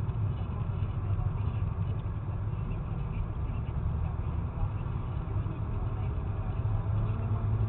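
Steady low rumble of a car driving, engine and tyre noise heard from inside the cabin; a steadier engine hum comes up near the end.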